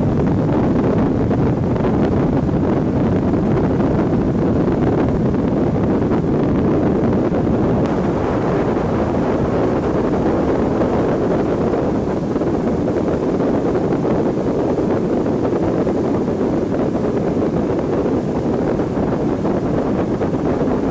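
Wind blasting across the microphone on a boat running at speed, mixed with the steady, unbroken drone of motorboats and rushing water.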